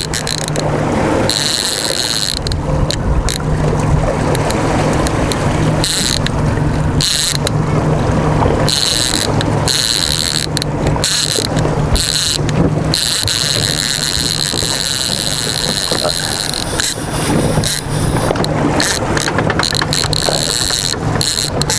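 Yamaha 150 outboard motor running steadily at trolling speed, a low even hum under the rush of wind and water at the stern.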